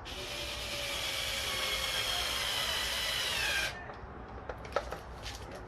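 Small cordless drill with a Phillips bit driving a screw, running for about three and a half seconds. Its whine drops in pitch just before it stops. A few light clicks follow.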